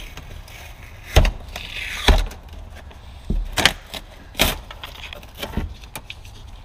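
Hands handling a truck's rear window and its taped-on cardboard cover from inside the cab: a handful of sharp knocks and clunks, with a brief rustling scrape about two seconds in.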